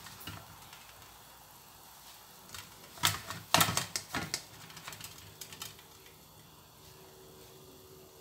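Fried sweet fish pieces clicking and rattling against a stainless-steel colander as they are pressed and shifted with paper to blot off the oil. The noise comes in a quick run of sharp clicks about three seconds in, lasting a second or so, with a few scattered ones around it.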